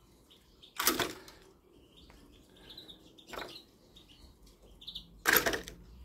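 Flap doors of two homemade wooden clapper bird traps slamming shut, one after the other: a sharp wooden clack about a second in and another near the end, with a lighter knock between. Faint bird chirps in the background.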